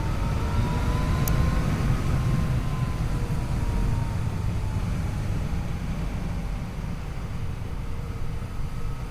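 Yamaha FJ-09's 847 cc inline three-cylinder engine running while riding. Its pitch rises a little over the first couple of seconds, then slowly drops as it eases off, over a heavy low rumble. There is a short sharp tick about a second in.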